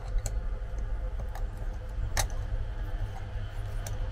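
Pliers clicking on the head of a screw stuck in a tyre's tread as they grip and tug at it: a few sharp metal clicks, the loudest about two seconds in, over a steady low rumble.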